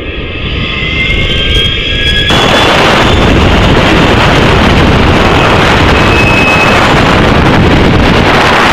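Loud rushing wind buffeting the rocket's onboard microphone as it falls back toward the ground, a low rumble that about two seconds in jumps suddenly to a harsh, steady hiss.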